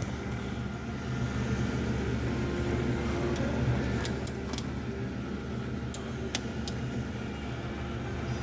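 MSC 1340GH geared-head tool room lathe running steadily at 115 rpm, a smooth gear-train hum. A few light clicks come between about four and seven seconds in.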